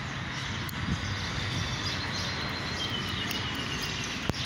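Steady outdoor city background noise at a tram stop, with faint bird chirps. A faint high tone falls slowly from about three seconds in, and there is one sharp click near the end.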